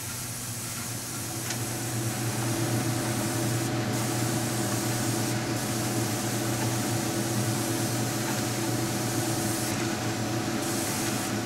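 Airbrush spraying thinned black paint at about 20 pounds of air pressure: a steady hiss that briefly thins about four seconds in, again at five and a half seconds, and near the end, with a steady low hum underneath.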